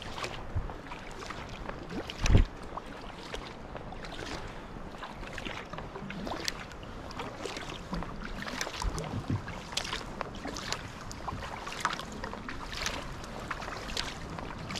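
Double-bladed kayak paddle stroking on calm water: the blades dip and pull, and water drips and splashes off them in many small, irregular trickles as the sea kayak glides. One low thump about two seconds in.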